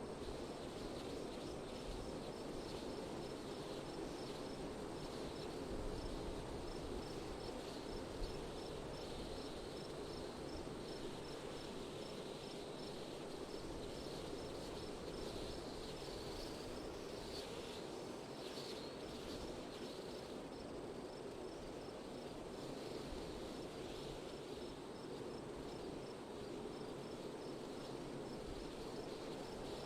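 Steady wind blowing, with an insect, cricket-like, chirping in short evenly spaced pips, a couple each second, above it.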